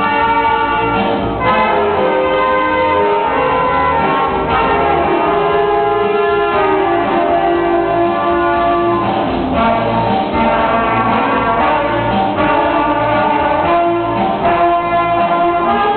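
Small student band of saxophones and brass playing a piece together: held notes that change every second or so, over a steady low pulse.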